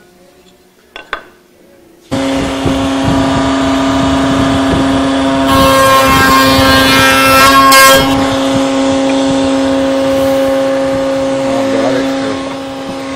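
Table-mounted router switching on about two seconds in and running with a steady whine. From about five and a half to eight seconds in it is louder and rougher as the one-inch straight bit cuts the leaf recess in a cherry hinge blank, then it runs on freely.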